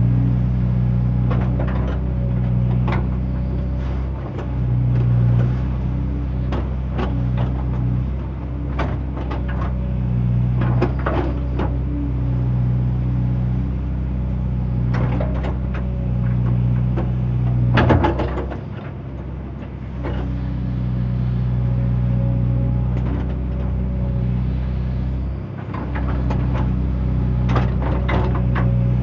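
A JCB excavator's diesel engine running steadily, with repeated metallic clanks and knocks from the machine at work. The loudest knock comes about two-thirds of the way through, and the engine note dips briefly after it.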